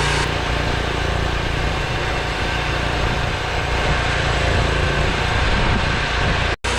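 Petrol chainsaw mill running steadily at full throttle as its chain cuts lengthwise through an oak log. The sound drops out for a split second near the end, then carries on.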